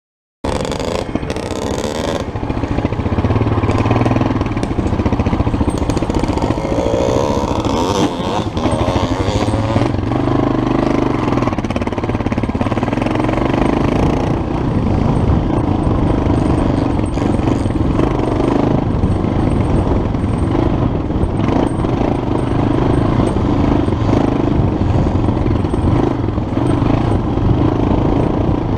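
Off-road motorcycle engine running under way on a dirt trail, heard from on board the bike, with the revs rising and falling as the rider works the throttle. It cuts in suddenly about half a second in.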